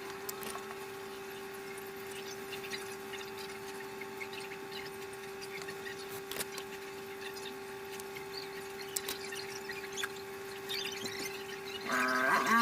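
A steady hum on one tone, with scattered small clicks and taps. Near the end a short wavering pitched sound rises and falls.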